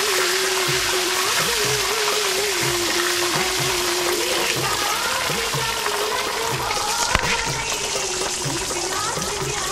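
Background music with a steady beat over a steady hiss from a sauce sizzling in a steel pot as it is stirred.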